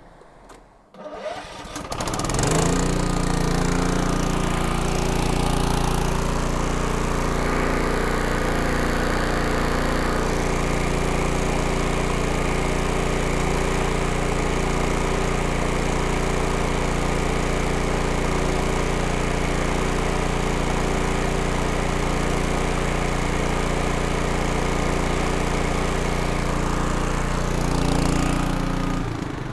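Kohler Command air-cooled engine starting up about a second in, catching within a second or so, then running steadily.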